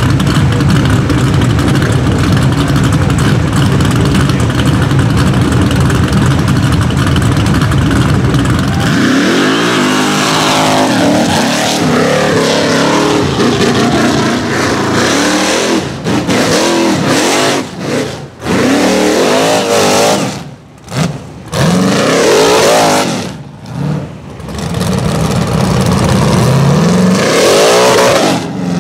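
Rock bouncer buggy's engine revving hard under load on a steep hill climb. Its pitch rises and falls over and over, with several sudden throttle lifts where the sound drops out. For about the first nine seconds there is a steady, loud, dense sound instead.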